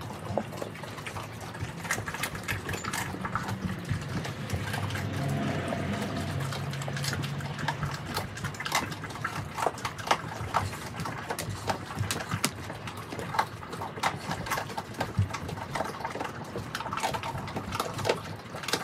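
Mastiff puppies chewing raw turkey, bones and all, with wet smacking and licking and many sharp cracks and crunches of bone.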